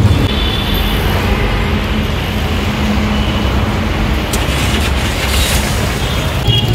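Steady road traffic noise: a continuous rumble of passing vehicles.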